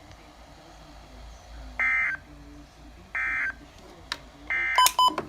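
Emergency Alert System end-of-message data bursts from a NOAA Weather Radio: three short, identical, buzzy digital bursts about 1.3 seconds apart, marking the end of the flood-warning alert. A few sharp clicks and short beeps follow near the end.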